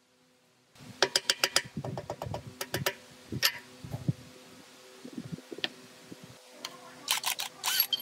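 A quick run of sharp clicks and knocks from hand work on metal parts, followed by scattered knocks and a short cluster of clicks near the end, over a faint steady hum.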